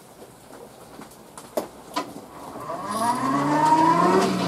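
A forge blower spinning up: two knocks, then from about three seconds in a rising whine that climbs and levels off as the fan comes up to speed.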